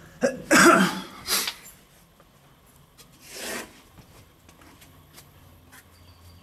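A person coughing: a loud cough followed quickly by a second, shorter one, then a softer breathy sound about three seconds in.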